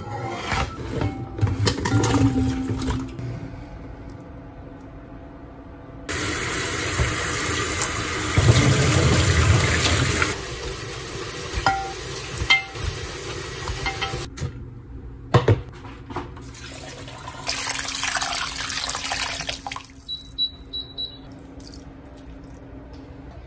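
Water running from a tap in two stretches, one of about four seconds and a shorter one near the end, with scattered knocks and clinks between.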